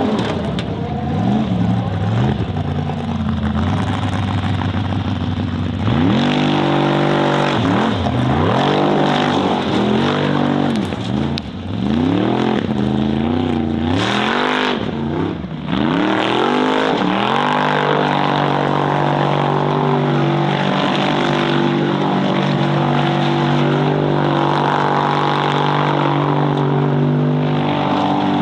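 Formula offroad buggy's engine at full throttle on a steep climb, its revs surging up and dropping again several times in the middle, then holding high and steady for the last ten seconds or so.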